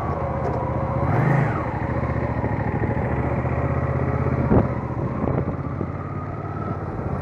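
Motorcycle engine running at low road speed, with a brief rise and fall in revs about a second in as it pulls away. A single sharp click sounds a little past halfway.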